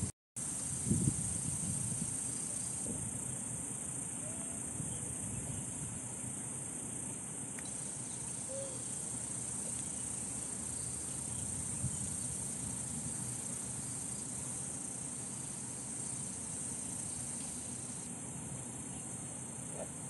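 Steady, high-pitched drone of an insect chorus over a low rumble; the sound drops out for a split second right at the start.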